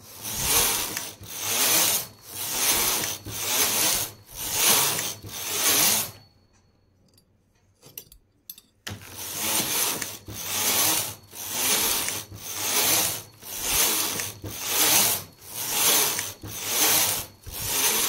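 Carriage of a hand-operated flat-bed knitting machine pushed back and forth across the needle bed, a rasping pass about once a second as each row of plain knitting is worked. It stops for about three seconds in the middle, with a few light clicks, then carries on at the same pace.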